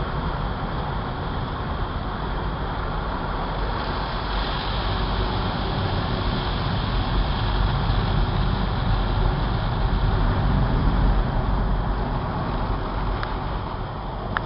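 Car wash running: a steady rushing noise with a deep rumble underneath, growing a little louder past the middle.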